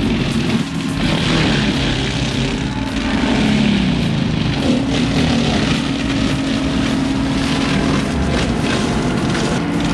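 Tracked forestry mulcher's engine running under load while its mulching head works through scrub, a continuous heavy mechanical drone. The pitch wavers in the first few seconds, then holds steady.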